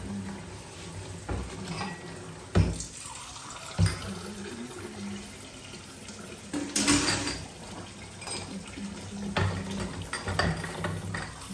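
Kitchen tap running steadily into a plastic washing-up basin in a stainless steel sink while drinking glasses are washed by hand. Sharp clinks and knocks of glass come at intervals, the loudest clatter about two-thirds of the way through.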